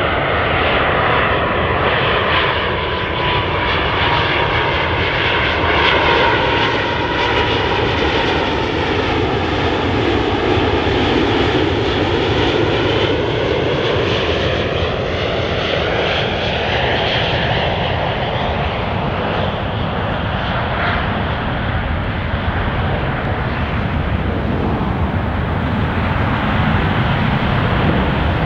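Boeing 777-200ER's twin jet engines on final approach, a steady loud rushing noise. A thin whine sits in it for the first several seconds, and the noise slowly sweeps in tone as the airliner passes close by.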